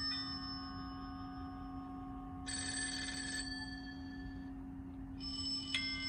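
Bell-like chimes ringing out and fading, with a short rapid trilling ring, like a telephone bell, about two and a half seconds in and fresh strikes near the end. A steady low hum runs underneath.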